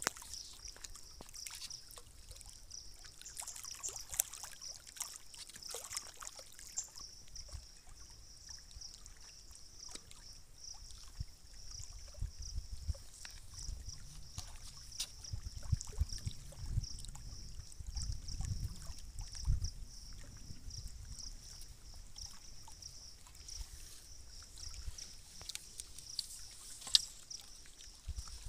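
Small waves lapping and trickling against the rocky shore, with low rumbling swells in the middle stretch. A steady high pulsing buzz and a few small clicks sit over it.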